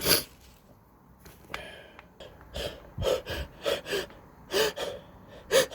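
A person with a cold sneezing: a sharp sneeze right at the start and another near the end, with short, wheezy gasping breaths in between.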